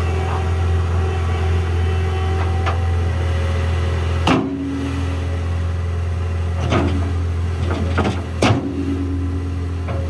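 Caterpillar 236D skid steer's diesel engine running steadily with a low drone while it grades dirt with its bucket. A few sharp knocks sound about halfway through and again in the second half.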